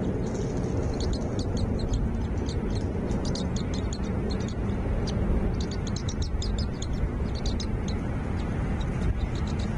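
Small birds chirping: quick runs of short, high chirps that come in clusters throughout, over a steady low rumble.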